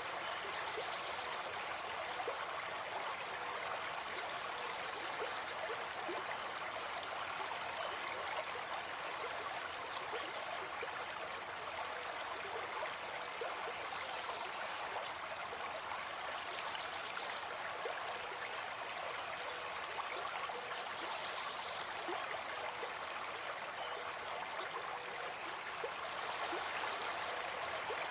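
A forest stream flowing, a steady, unbroken rush of water.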